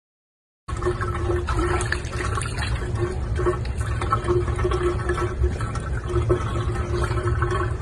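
Water running and churning in a filled bathtub, a dense steady rush with a constant hum underneath.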